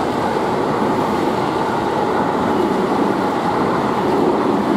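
EF210 electric locomotive and container freight train approaching on the rails, a steady rumbling noise of wheels on track.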